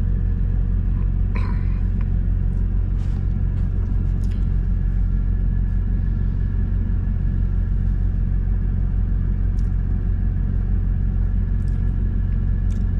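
Diesel engine idling with a steady low rumble, heard inside a semi truck's sleeper cab, with a few faint clicks and taps over it.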